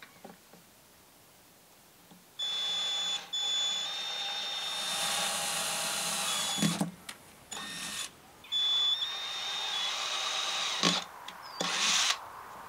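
Cordless drill with a twist bit boring through the hard plastic of a closed Pelican case, its motor whining steadily. It starts a couple of seconds in and runs in several stretches with short stops between, ending in a brief burst.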